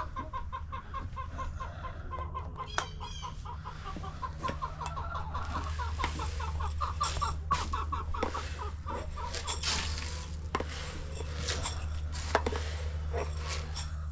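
Chickens clucking in a rapid, steady run of short notes, with scattered sharp clicks and taps in the second half over a steady low rumble.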